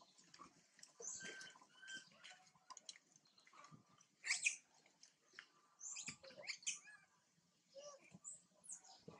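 Faint, scattered short animal chirps and squeaks, a few of them short pitched notes, mixed with light clicks; the loudest comes about four seconds in.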